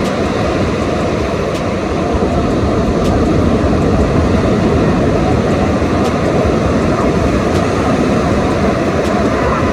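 Steady loud roar of wind and rough surf, with wind buffeting the microphone as a rumble.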